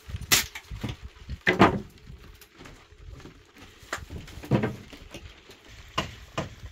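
Irregular knocks and clatters, the loudest about a second and a half in.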